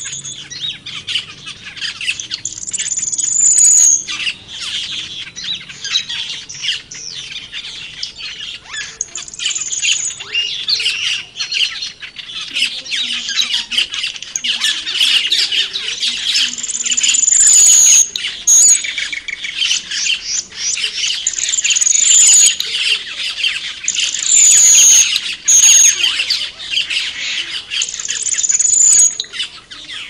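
Cucak keling birds calling: a busy, unbroken run of quick chirps and chattering, with a short high whistle repeated every few seconds.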